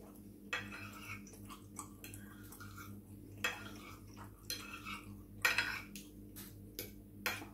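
A fork clinking and scraping against a plate as pasta is scooped up, with a few sharper clinks spread through.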